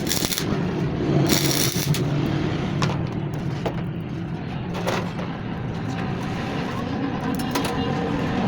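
Workshop machinery running with a steady low hum, broken by several short hissing, scraping bursts.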